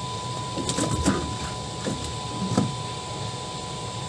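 A few dull thuds and knocks on a wooden boat as a large catfish is laid down in its bottom and a man shifts his footing. The loudest knocks come about a second in and again near the middle, over a steady background hiss.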